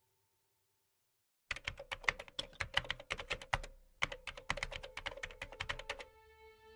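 Keyboard typing sound effect: rapid key clicks in two quick runs with a brief pause between them, starting about a second and a half in. Soft music comes in near the end.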